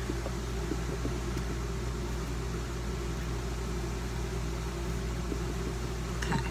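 Steady low mechanical hum with an even hiss behind it, unchanging throughout.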